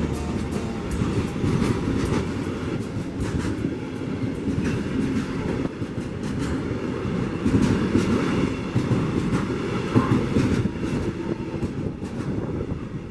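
ČD Cargo freight train rolling past: a steady rumble of wagons with irregular clicks and clatter from the wheels on the track.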